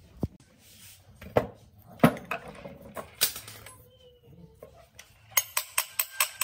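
Hoverboard hub-motor parts knocking and clinking as they are handled and set down, the loudest knock about two seconds in. Then, a little after five seconds, a quick, even run of sharp metal taps, about five a second, as a hammer taps on a motor stator and its shaft.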